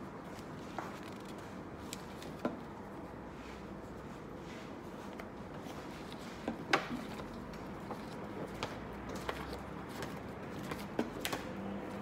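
Paper envelopes being handled and sorted by hand: scattered light flicks, taps and rustles of paper as envelopes are picked up and laid down, the sharpest a little past halfway, over a steady low room hiss.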